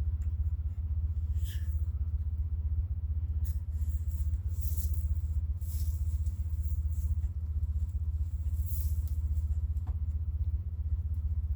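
A steady low rumble with a few faint, brief rustles over it.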